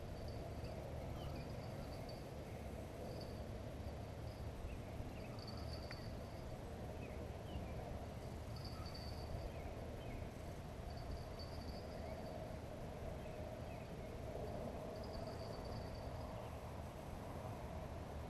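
Outdoor riverside ambience: an insect trilling in short bursts every second or two, with scattered faint bird chirps over a steady low background rumble.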